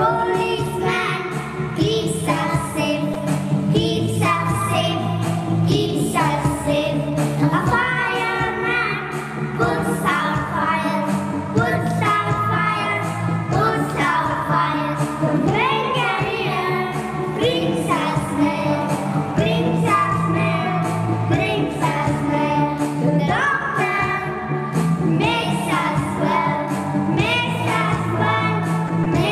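Young children singing a song together over a musical backing track.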